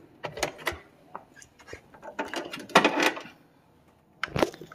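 Hand work on a car door's lock and latch hardware: a string of short mechanical clicks and clacks, with a denser clatter about three seconds in and a sharp knock near the end.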